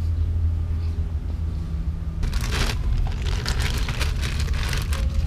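A steady low rumble, joined about two seconds in by crackling and rustling as the camera is handled and moved.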